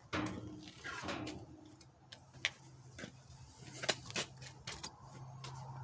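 A few light, irregular clicks and taps of handling small tools or equipment, with a low steady hum coming in past the middle.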